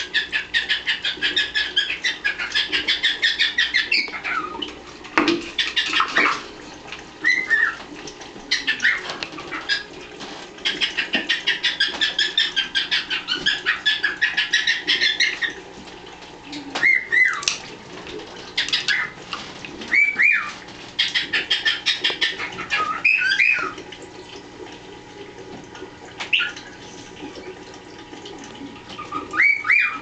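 Pet parrots chattering: long runs of fast, repeated chirps lasting several seconds at a time, three times over, with short, sweeping whistled call notes in between.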